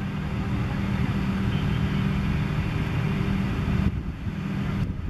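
A steady low mechanical hum, like an engine running at a constant speed, with a faint broad rush over it.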